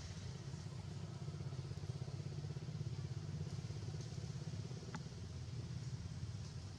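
An engine running steadily with a fast low pulse, and one short click about five seconds in.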